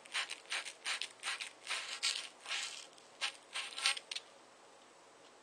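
120-grit abrasive cloth rubbed back and forth over the end of a copper pipe, about three quick scratchy strokes a second, stopping about four seconds in: the pipe end being cleaned and shined before soldering.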